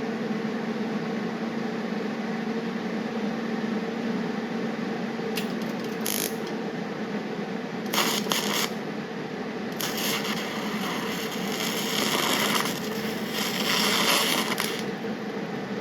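A steady electrical hum with two short bursts of hissing, scratchy noise a little before and after the middle, then a longer stretch of the same noise lasting about five seconds.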